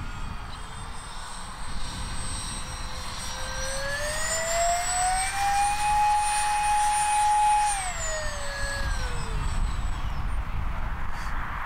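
A 50 mm electric ducted fan on a 4S battery in a 3D-printed Avro Vulcan model whines in flight. Its pitch rises as the throttle is opened about three seconds in, holds high for about two seconds as the model climbs steeply, then falls as the throttle comes back.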